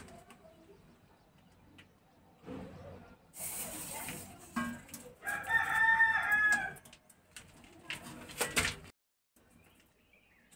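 A rooster crows once, a single drawn-out arching call of about a second and a half. It is set among handling noise: scraping about three seconds in and a few sharp knocks near the end.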